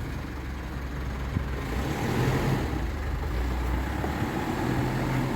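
Steady hum of a road vehicle's engine with tyre and road noise while driving.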